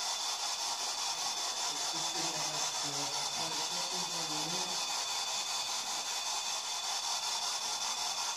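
Steady hiss of a quiet room on the recording, with a thin, high, steady tone over it. About two seconds in, a faint low voice murmurs for a few seconds, too quiet to make out.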